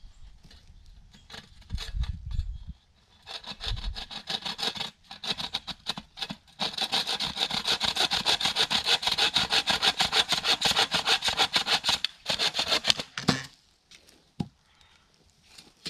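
Hand saw cutting through wood in quick, even back-and-forth strokes, starting about three seconds in, steadiest and loudest in the middle, and stopping about two seconds before the end.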